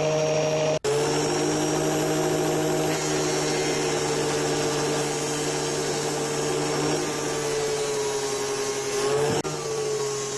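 Black & Decker angle grinder running at a steady pitch, its 60-grit sanding disc grinding down a plastic gas lighter with a constant gritty hiss. The sound breaks off abruptly about a second in and again near the end, where the footage is cut.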